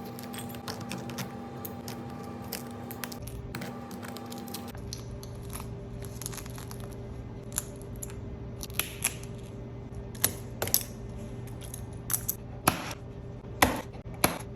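Shattered back glass of an iPhone 11 being broken and picked off the phone: irregular sharp clicks and small glassy clinks, louder and sparser in the second half, over a steady hum that changes pitch about five seconds in.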